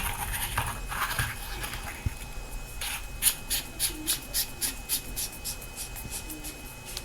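Handheld handling noise, then a quick, even run of short light scratching strokes, about four a second, starting about three seconds in.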